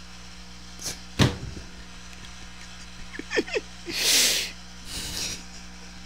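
Short giggles and breathy exhales close to a handheld microphone, with a click and a thump from the microphone being handled about a second in. A steady low electrical hum runs underneath.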